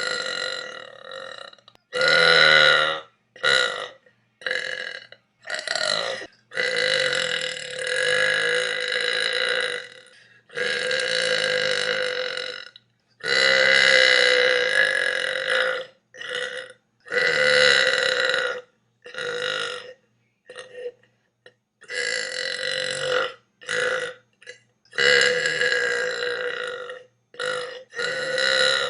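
A person belching over and over: a string of drawn-out burps, several lasting two to three seconds, each held at a fairly steady pitch, with short pauses and a few brief burps in between.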